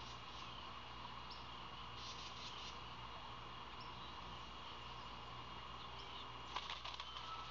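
Outdoor nest-camera ambience: a steady hiss with a faint high steady tone, scattered short bird chirps, and a quick burst of clicks near the end.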